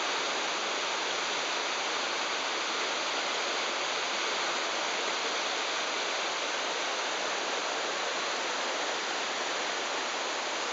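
Whitewater river rapids rushing, a steady unbroken wash of water noise.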